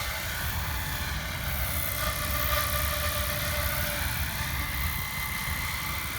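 SAB Goblin 570 electric RC helicopter with an Xnova Lightning motor running under power: a steady whine of motor and rotor blades over a rough low rumble.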